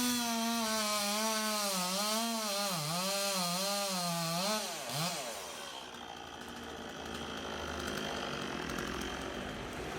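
Two-stroke chainsaw running at high revs, its pitch wavering and dipping again and again as the chain bites into wood; it stops about five seconds in, leaving a duller, steady noise.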